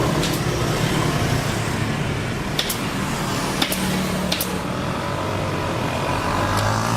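Refrigeration vacuum pump running with a steady motor hum, with a few light clicks over it.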